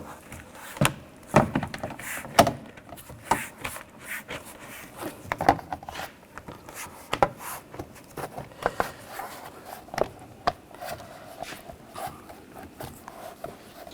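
Plastic door trim piece being handled and fitted against a pickup truck's door: irregular light clicks and knocks of plastic on the door as it is lined up.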